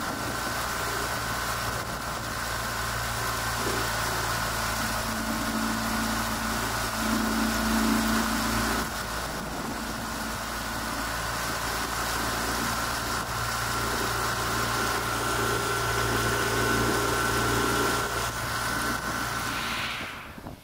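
An engine running steadily at an even pitch with no revving, which cuts off suddenly near the end.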